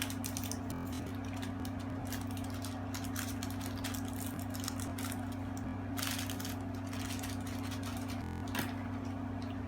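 A steady low hum with many faint, irregular small clicks and rustles of plastic bead packets and tiny plastic beads being handled.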